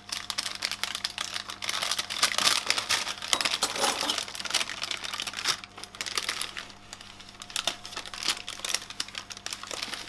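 Baking parchment paper crinkling and rustling as it is peeled off a sheet of baked grated potato and bunched up by hand, in irregular crackles that are busiest in the first half and thin out after about six seconds.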